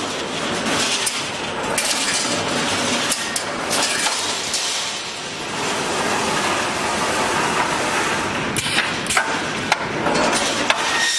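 Automatic wire mesh panel welding machine running: its row of resistance welding heads crackling and clanking as they weld cross wires onto line wires, with scattered sharp metallic clacks over a steady dense machine noise.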